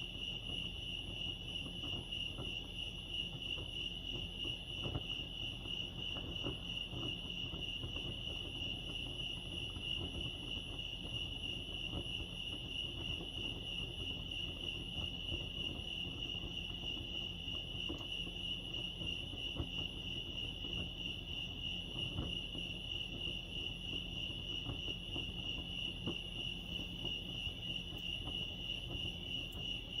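Crickets chirping in a steady, unbroken high-pitched trill, with a faint low rumble beneath.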